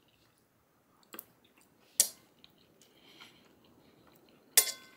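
A metal fork clinks against a plate three times, about a second in, at two seconds, and loudest near the end with a brief ring, with faint chewing between.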